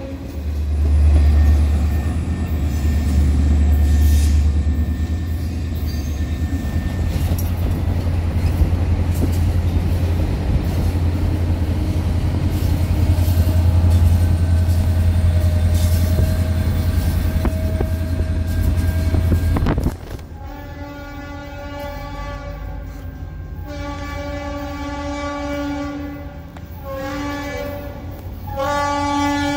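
A heavy low rumble for about the first two-thirds, then the Leslie RS-3L three-chime horn on Norfolk Southern SD40-2 #3278 sounding four blasts, long, long, short, long: the grade-crossing signal. The horn is badly fouled, its chord turning choked at times.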